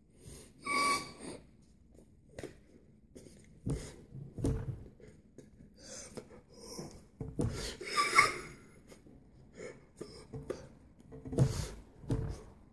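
A man's short, wordless, breathy vocal sounds, coming irregularly one after another in a small room.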